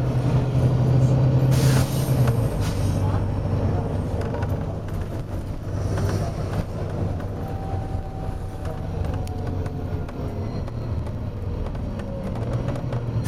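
Volvo B9TL double-decker bus's engine running, with a short blast of air hiss from its air system about a second and a half in, after which the engine note drops lower. A second air hiss starts right at the end.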